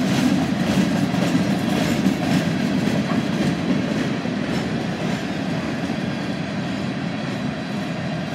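Freight train cars rolling past with a steady rumble and the wheels clicking on the rails, growing a little quieter toward the end.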